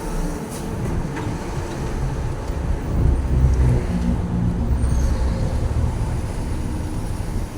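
A moving truck's engine and road noise: a low, steady rumble that grows a little louder about three seconds in.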